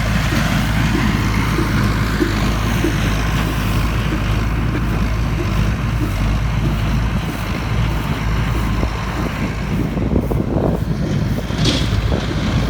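An engine idling steadily: a constant low hum with a rough, noisy edge, and a brief higher-pitched sound near the end.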